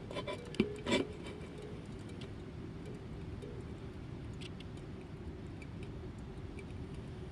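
A sleeping cat snoring with a low, steady rasp. There are a few sharp clicks in the first second.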